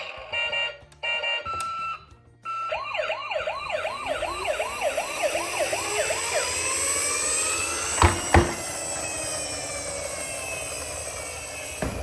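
Toy emergency vehicles' electronic sirens. It starts with a few short steady beeps, then a fast yelping wail sweeping up and down about three times a second, overtaken by several slower siren wails overlapping. Two sharp knocks come about eight seconds in, and another knock comes just as the sirens cut off near the end.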